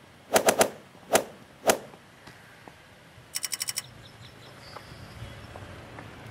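Smartphone sounds: five sharp taps on the screen, three in quick succession and then two more, followed about a second and a half later by a short rapid run of about seven electronic beeps, like an app notification. A faint steady outdoor background follows.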